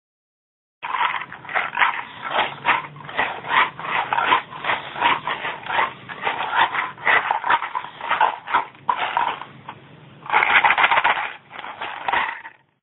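Homemade maraca made from a paper-covered cardboard tube, shaken by a child and rattling in quick, uneven shakes of several a second. It begins about a second in, eases off briefly about ten seconds in, then comes back in a louder burst of shaking before stopping.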